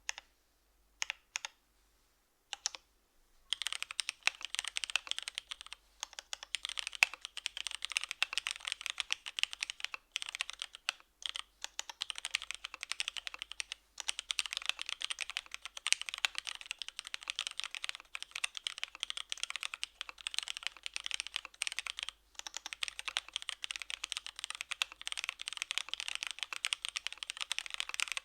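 Typing on a Devotion 65% mechanical keyboard with Cherry HG Black linear switches, DCS-profile keycaps and an aluminium full plate. A few single keystrokes come first, then fast continuous typing from about three seconds in, with brief pauses twice.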